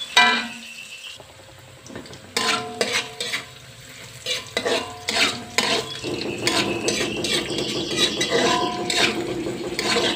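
Metal spatula scraping and knocking against a metal wok as sliced shallots, garlic and chilies are stir-fried in oil, with a light sizzle, in irregular strokes.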